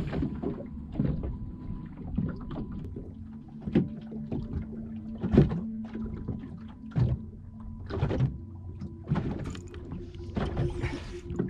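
Water slapping and lapping against the hull of a small drifting boat, with irregular knocks and thuds and a faint steady hum underneath.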